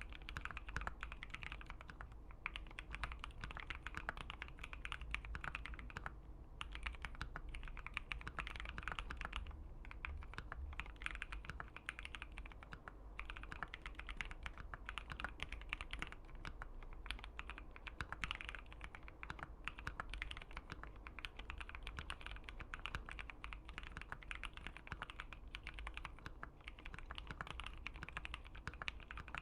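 Typing on a Keychron Q1 75% mechanical keyboard fitted with an FR4 plate and Gateron Phantom Brown switches. The keystroke clacks come in a dense, steady stream, with a few brief pauses.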